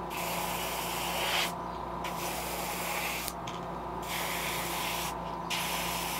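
Airbrush spraying paint onto a fishing lure: a hiss that comes in short bursts with three brief pauses as the trigger is pressed and released, over a steady low hum.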